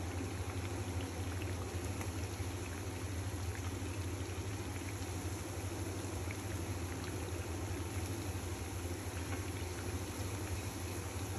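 Lentil patties frying in hot oil in a pan: a steady sizzle with many small crackles, over a low steady hum.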